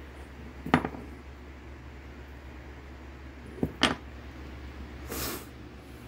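Small metal parts handled on a wooden tabletop: a sharp knock about a second in, then two quick knocks a few seconds later, and a brief hissing rustle near the end.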